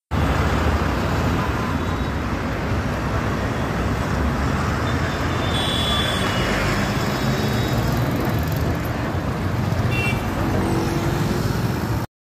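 Street traffic noise, a steady rumble of vehicle engines and tyres, with a couple of short high tones about six and ten seconds in. It cuts off abruptly just before the end.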